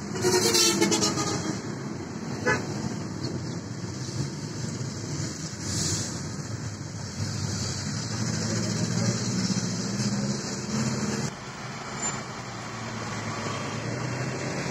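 A vehicle horn sounds for about a second at the start, with a short knock a moment later. Steady traffic and engine noise, heard from inside a car's cabin, runs under it.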